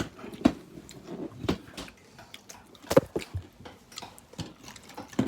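Irregular short crunches and clicks of people eating tortilla chips and handling food at the table, about half a dozen sharp ones spread over a few seconds.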